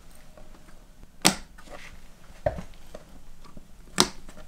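80 amp breakers on SimpliPhi 48-volt batteries being switched on one after another: three sharp clicks about a second and a quarter apart.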